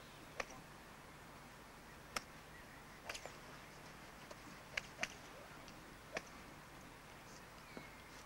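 Crisp clicks of golf clubs striking balls on a driving range: about seven sharp strikes at uneven intervals, some nearer and louder than others, over a faint steady hiss.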